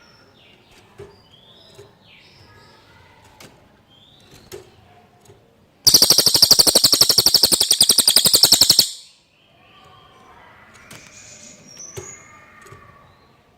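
Cililin songbird song: soft scattered chirps and whistles, then about six seconds in a loud, rapid, high-pitched trill lasting about three seconds that cuts off abruptly, followed by more soft chirping.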